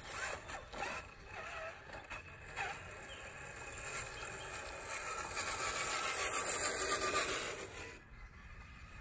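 Electric motor and geared drivetrain of an RC4WD TF2 LWB scale crawler truck whining under throttle. The sound grows louder from about four seconds in and cuts off suddenly about eight seconds in.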